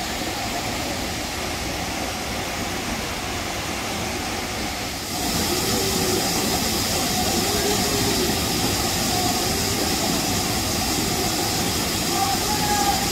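Steady roar of a waterfall pouring into its plunge pool, louder and brighter from about five seconds in, with faint voices over it in the second half.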